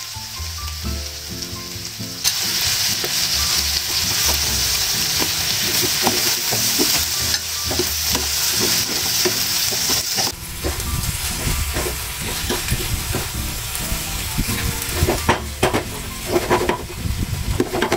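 Eggplant, onion and tomato sizzling in a frying pan while a plastic spatula stirs them, scraping and clicking against the pan. The sizzle comes in loud about two seconds in and eases off about ten seconds in; the stirring clatters more busily near the end.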